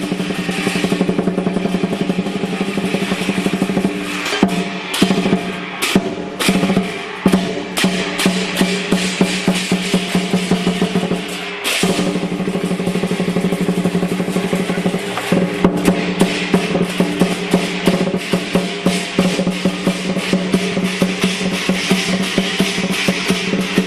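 Lion dance percussion band playing: a large drum beaten in fast rolls under steadily ringing cymbals and gongs, with sharp accented strikes and a brief break about halfway through.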